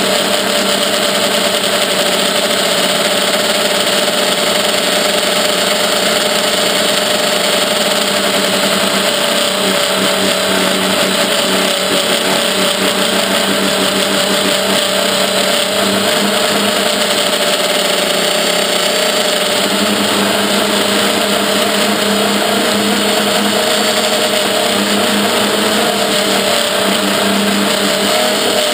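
Small FPV quadcopter's electric motors and propellers, heard from the onboard GoPro, buzzing steadily in fast flight, the pitch drifting a little as the throttle changes.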